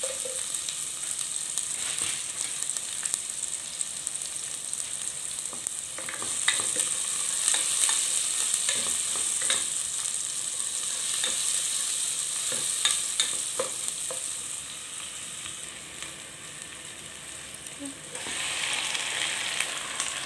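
Sliced red onion, diced tomato and garlic sizzling in oil in a non-stick pot, with a steady frying hiss. A spatula stirring through them scrapes and taps against the pan now and then.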